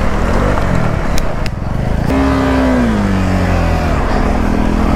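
KTM 390 Adventure's single-cylinder engine running under load on a muddy off-road track. The revs swing, and about two seconds in the pitch falls away as the throttle is eased. A couple of short sharp knocks come just after a second in.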